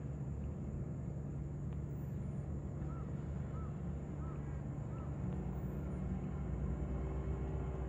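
Steady low hum, with four short high chirps about two-thirds of a second apart in the middle; the hum grows a little louder near the end.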